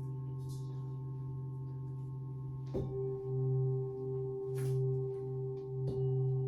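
Tibetan singing bowls ringing with long sustained tones that pulse slowly. About a third of the way in a bowl is struck, starting a strong new tone over the others, and another light strike comes near the end.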